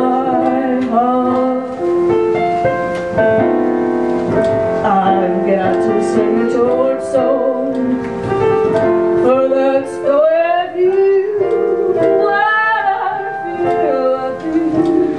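A slow torch song: piano accompaniment under a singer's voice holding long, wavering notes with vibrato.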